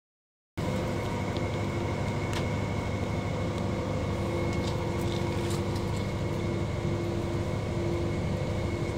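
A steady mechanical hum with a low rumble and a faint high whine, starting about half a second in, with a few faint ticks.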